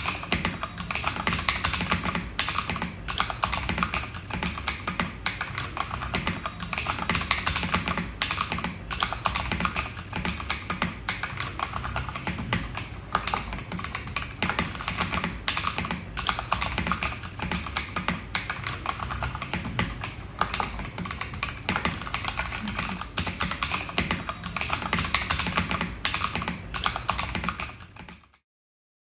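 Onikuma G52 mechanical keyboard, with tactile brown switches and ABS keycaps, being typed on fast and without pause: a dense run of key clicks that stops suddenly near the end.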